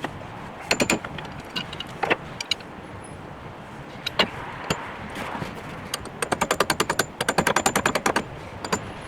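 Hand-tool work on a skid steer's hydraulic cylinder: a few separate metallic knocks, then two quick runs of rapid clicking, about ten clicks a second, like a ratchet being worked back and forth.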